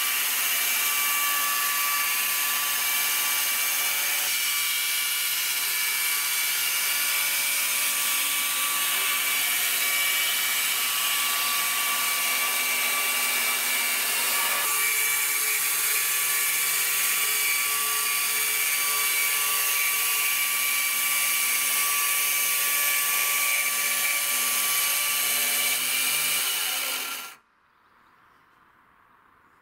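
Electric chainsaw on a Logosol Farmer's M8 chainsaw sawmill, running steadily under load as it rips a board lengthwise from a squared timber. It stops suddenly near the end, as the saw reaches the end of the cut.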